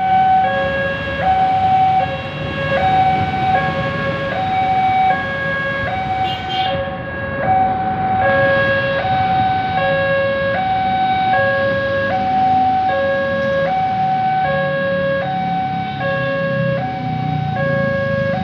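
Railway level-crossing warning alarm sounding its electronic two-tone signal, a high and a low note alternating evenly about once a second while the barrier is down for an approaching train. Road traffic runs underneath.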